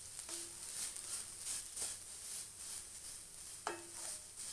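Aval (flattened rice flakes) being roasted in an iron kadai and stirred with a wooden spatula: a rustling scrape of the dry flakes with each stroke, about two to three strokes a second, with faint sizzling and a few short squeaks of the spatula against the pan.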